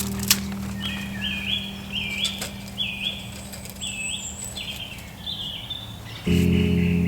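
A woodland bird singing a repeated phrase of short high notes, about two a second. Background music fades out in the first second and comes back in loudly near the end.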